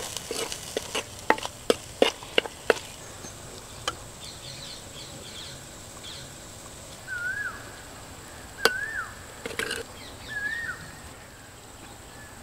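Metal spoon knocking and scraping against an iron kadai as a thick, almost dry mutton liver fry is stirred and scooped out, a quick run of clicks that thins out after a few seconds. Later come three short chirp-like calls, with a couple more knocks between them.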